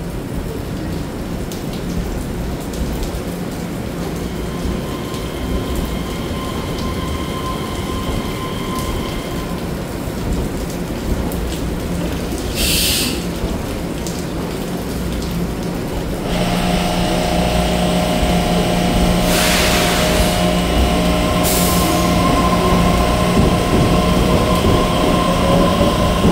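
Taiwan Railway EMU3000 electric train standing at the platform with a low, steady rumble and a few short hisses. From about two-thirds of the way in, its traction equipment starts with several steady whining tones, which begin to rise at the very end as the train pulls away.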